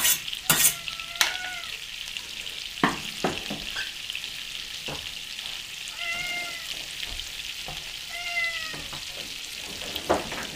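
Minced garlic sizzling in melted butter in a stainless steel skillet: a steady high hiss with scattered pops, most of them in the first three seconds. A cat meows three times over it: about a second in, around six seconds and around eight seconds.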